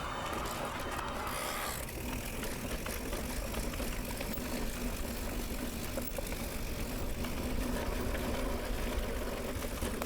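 Mountain bike riding along a dirt trail: a steady rush of tyre and trail noise with the bike rattling. A faint steady hum sets in about two seconds in.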